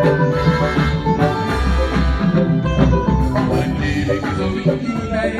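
A band playing an upbeat dance tune with a steady beat, a deep bass line, percussion and held melodic lines from the instruments.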